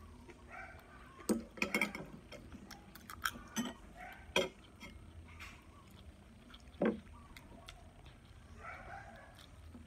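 Metal fork and spoon clinking and scraping against a plate while eating: a handful of sharp clinks, the loudest clustered between about one and four and a half seconds in, and one more near seven seconds.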